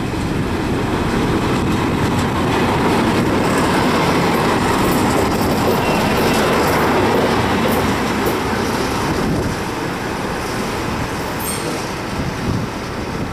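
Two DB class 218 diesel-hydraulic locomotives passing slowly at close range, engines running with wheel and rail noise. Loudest as they go by and easing off as they move away near the end.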